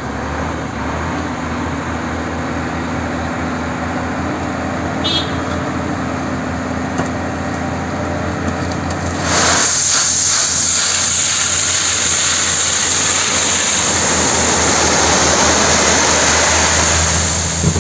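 Tipper truck's engine running steadily. About halfway through, a louder rushing, hissing noise joins it as the tipping bed dumps its load of crushed stone.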